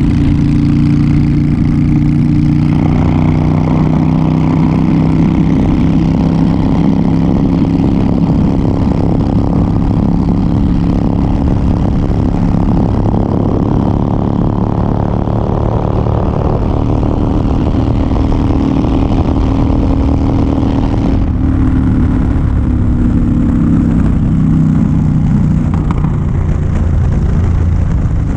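Honda Fury's V-twin engine running steadily at cruising speed, with wind and road noise over it; the engine note changes about three seconds in and again about two-thirds of the way through.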